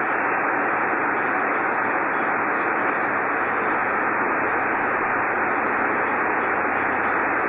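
Steady hiss of band noise from a Yaesu FT-1000MP Mark-V HF transceiver tuned to 75 meters on lower sideband, with no station transmitting. It is a dull hiss with the highs cut off by the receiver's sideband filter.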